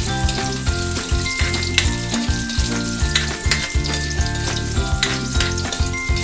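Chopped white onion sizzling in hot oil in a wok, with a metal spatula scraping and clicking against the pan as it stirs. Upbeat ukulele background music plays throughout.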